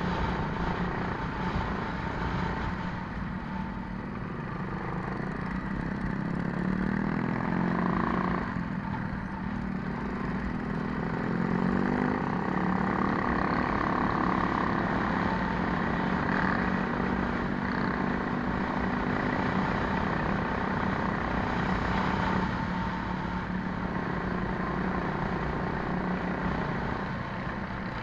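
Coleman minibike engine running hard on a dirt course, its pitch rising and falling as the throttle opens and closes, with other minibike engines close ahead and heavy wind noise.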